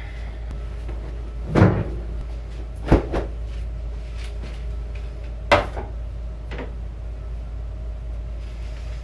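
Laundry and clothes hangers being handled: a handful of sharp clacks and knocks spread over several seconds, the loudest about a second and a half in, over a steady low hum.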